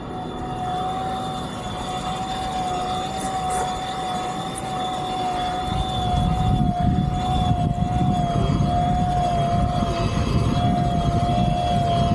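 Flite Ultra eFoil's electric propeller motor whining at a steady, slightly wavering pitch as the board rides on its foil. A low rush of wind on the microphone grows louder about halfway through.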